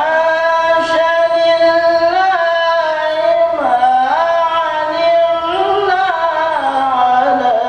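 Male voice reciting the Qur'an in melodic tilawah style, one unbroken phrase of long held notes that slide and turn between pitches.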